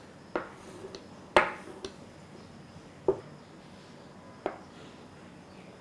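A pizza-cutter wheel knocking and scraping on a wooden cutting board as it cuts a sheet of stiff dough into diamond pieces. There are several sharp taps at irregular intervals, the loudest about a second and a half in.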